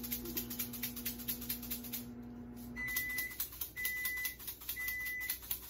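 Microwave oven humming as it runs, then shutting off a little under three seconds in and giving its end-of-cycle beep three times, about a second apart: the one-minute heating is done. A faint rapid ticking runs underneath.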